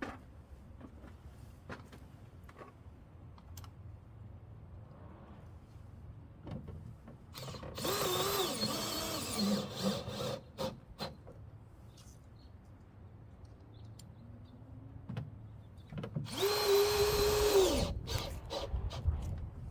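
Cordless drill run in two bursts of two to three seconds each, drilling through plastic and then the thin sheet metal of a door. Its pitch sags under load in the first burst and holds steady in the second, which stops abruptly. Small knocks and clicks of handling come in between.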